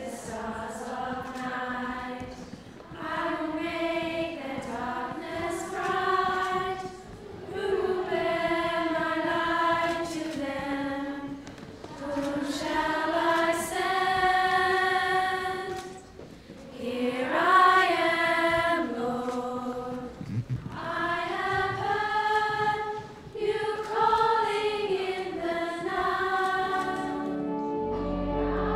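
A choir of girls' voices sings unaccompanied in slow phrases, with short breaths between them. Steady held chords come in near the end.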